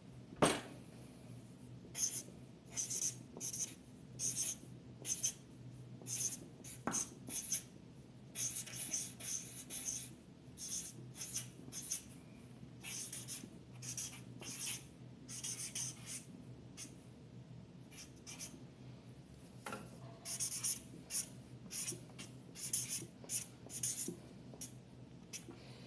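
Handwriting: a pen scratching out a run of short, irregular strokes, with a few sharp clicks in between.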